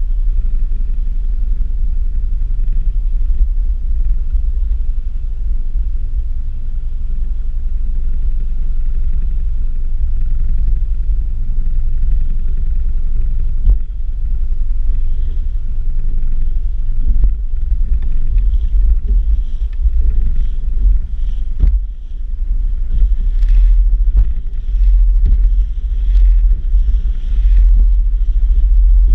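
Bass Tracker boat under way with its motor running, largely buried under a heavy, steady rumble of wind buffeting the microphone. A few sharp knocks come through in the second half.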